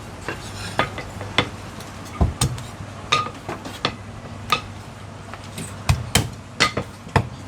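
A meat cleaver chopping roast meat on a wooden chopping block: a dozen or so sharp, irregular knocks, a few with a short metallic clink.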